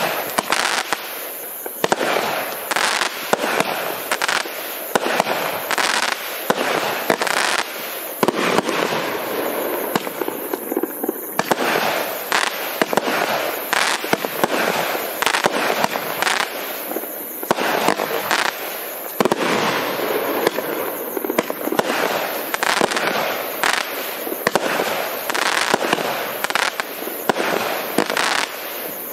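A 200-gram consumer fireworks cake firing a long rapid run of shots and bursts, one after another, with crackling between them.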